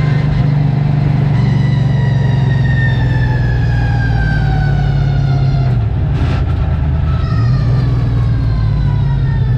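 V8 Late Model race car engine running, heard from inside the car, with a high whine that falls slowly in pitch. About six seconds in the engine drops lower and the whine breaks off, then the whine returns and falls again.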